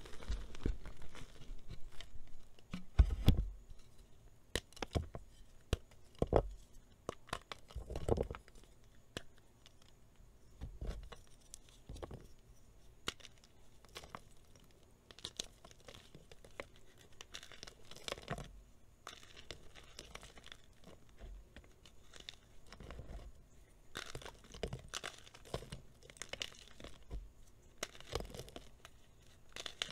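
Reformed plain gym chalk being crushed and crumbled by hand: a run of crisp crunches and soft powdery crumbling, with a few louder cracks in the first several seconds as harder pieces break.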